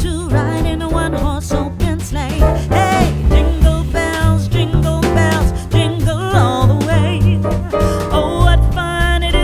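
Background music: an upbeat song with a singing voice over bass and drums.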